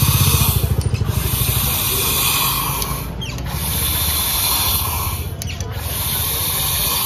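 CO₂ gas hissing from the charging nozzle of a street soda rig into a plastic bottle of ice and water, carbonating it. The hiss comes in four stretches of one to two seconds, broken by short gaps. A low rapid throbbing sits under the first second or so.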